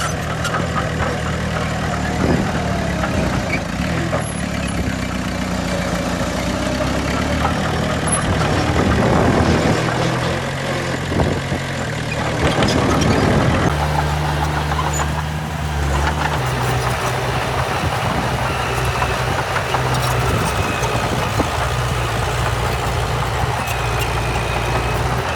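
Diesel engines of heavy earthmoving machinery running, a bulldozer and dump truck at work, the engine note shifting and growing louder for a few seconds twice near the middle.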